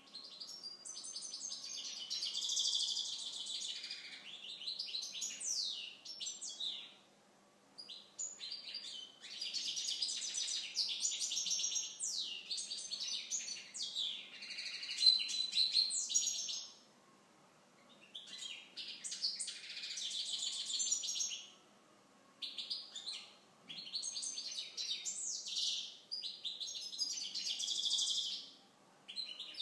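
Caged European goldfinch of the Balkan subspecies (Carduelis carduelis balcanica) singing its fast, high twittering song in several bouts of a few seconds each, broken by short pauses.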